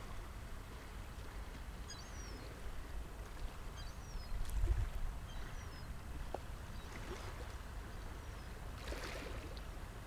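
Small waves lapping gently at seaweed-covered shore rocks, with a few soft splashes, under a low rumble of wind on the microphone that swells about halfway through. Several short, high bird chirps come through in the first half.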